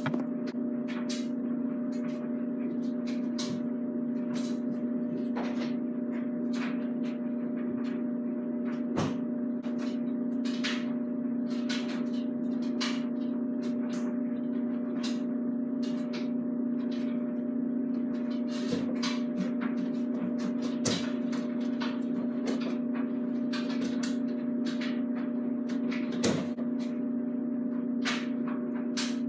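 A steady low hum with scattered light clicks, and a couple of louder knocks, one about nine seconds in and one near the end.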